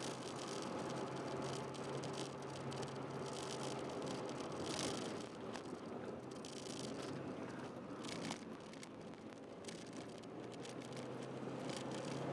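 A Honda Jazz 1.3-litre four-cylinder engine heard from inside the cabin, holding a steady note, easing off briefly about halfway through and then picking up again. Loose interior trim and the camera mount rattle over it.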